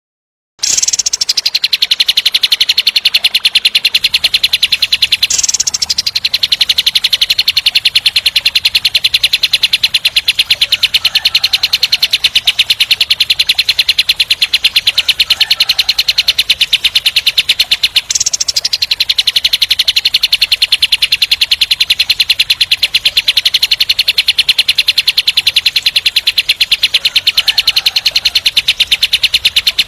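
Kapas tembak, a bulbul, singing its 'tembakan': a long, very fast rattling trill of tightly packed notes, restarting twice with a brief break.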